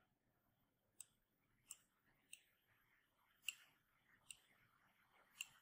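Faint computer mouse clicks: six single clicks spaced about a second apart, against near silence.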